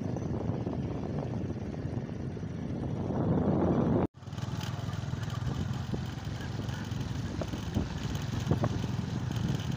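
Motorcycles running along a road, heard from a moving motorcycle. A low engine rumble mixed with wind buffeting the microphone cuts out abruptly about four seconds in, then comes back as a steadier engine hum.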